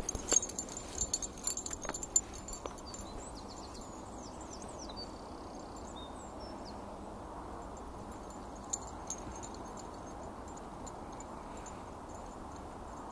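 Outdoor ambience: a steady hiss, with a few sharp clicks and taps in the first three seconds and brief high chirps a few seconds in.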